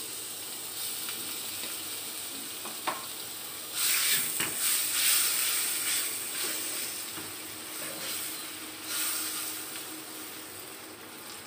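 Minced garlic sizzling in melted butter in a wok while a wooden spatula stirs it. The sizzle swells louder about four seconds in and again near the nine-second mark, and there is a light knock a little before.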